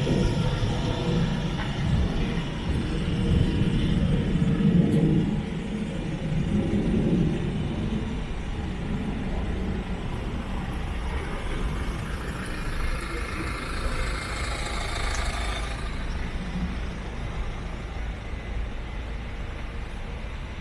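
A motor vehicle's engine running close by, loudest about four to five seconds in, then easing into a steadier street hum.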